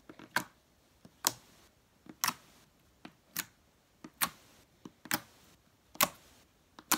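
Slime being pressed and folded by hand to make clicking pops, a sharp click about once a second with smaller clicks in between.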